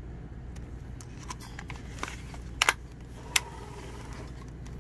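A few sharp clicks and light handling noises from the shipping bags and box of a live-reptile delivery being handled, over a steady low hum; the loudest is a quick double click about two and a half seconds in, with another click shortly after.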